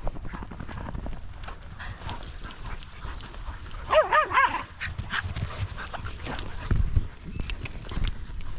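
A dog gives a quick run of about four short, high yelps about halfway through.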